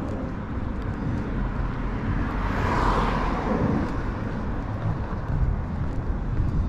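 A car driving past on the street, its tyre and engine noise swelling to a peak about three seconds in and fading away, over a steady low traffic rumble.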